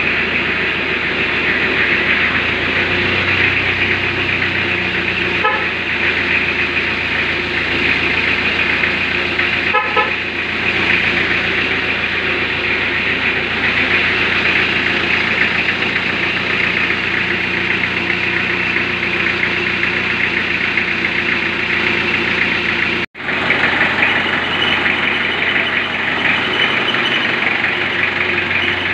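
1991 Isuzu Panther's diesel engine idling steadily with a fine, rapid clatter while it warms up. The sound cuts out for an instant about 23 seconds in.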